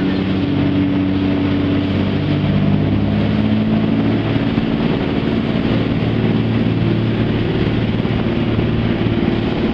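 Jet boat's engine running steadily under way, its pitch shifting a little a few seconds in, over a steady rush of water and wind.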